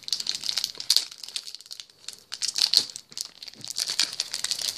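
Foil booster-pack wrapper crinkling in irregular bursts as it is gripped and tugged at the top seam, with a short lull about two seconds in. The wrapper is not tearing open.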